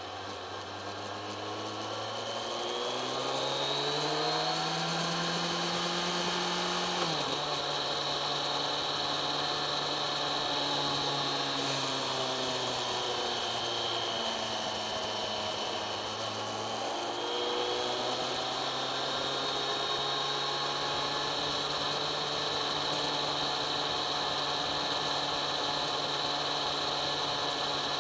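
Kawasaki ZX-10R inline-four engine heard on board while riding. The revs climb for a few seconds, drop sharply with an upshift about seven seconds in, ease off briefly around the middle, then hold steady at cruise. A high whine rises and falls with the revs.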